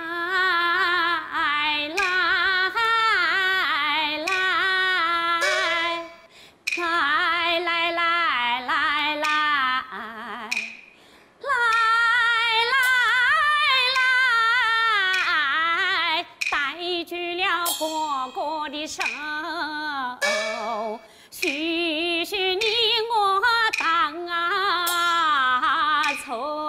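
A woman singing a Huangmei opera aria, in long phrases held with a wide vibrato, breaking briefly about six and about eleven seconds in.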